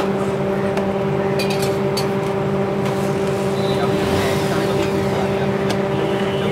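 A steady machine hum with several fixed tones runs under the work on an iron griddle. A steel spatula taps and scrapes a few times, and an aloo paratha sizzles as it is pressed down, about four seconds in.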